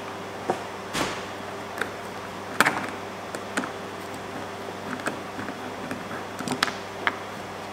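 Hand screwdriver backing a screw out of a plastic bracket on a plastic kayak hull: a scatter of light clicks and scrapes at irregular intervals, over a steady faint hum.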